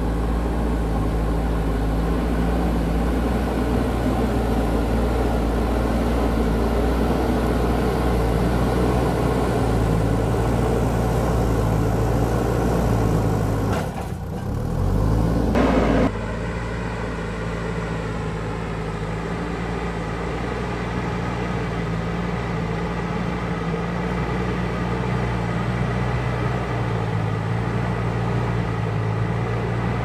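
JCB backhoe loader's diesel engine running steadily as the machine works, with a short break about halfway through; after it the engine note rises and falls slightly.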